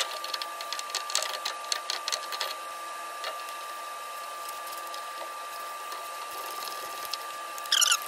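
Light metallic clicks and clinks as new shock-mount hardware (bushings, washers, nut) is handled and fitted onto the top of a truck's front shock absorber, in a scatter for the first couple of seconds and again in a quick rattle near the end. A steady high-pitched hum runs underneath.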